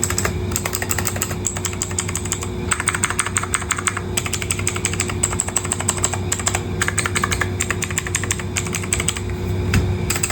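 Typing on a Leaven K550 mechanical keyboard with blue switches: rapid, clicky keystrokes in bursts with short pauses, over a steady low hum.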